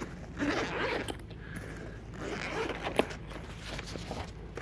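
Zipper on a small fabric tool bag being pulled open in two rasping strokes, with a sharp click about three seconds in.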